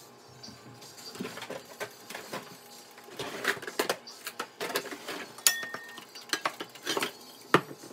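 Irregular clinks, taps and knocks of metal cookware, sparse at first and busier after about three seconds, with a few sharper clanks, one of them ringing briefly.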